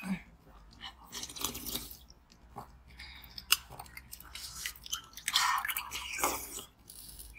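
A person biting and chewing frozen coloured water, a slushy ice, off a spoon: irregular crunches and wet chewing in short separate bursts.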